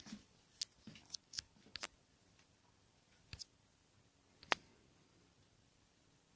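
Handling noise from a handheld phone being moved: scattered sharp clicks and taps, several close together in the first two seconds, a pair a little after three seconds and one louder click about four and a half seconds in, over faint room tone.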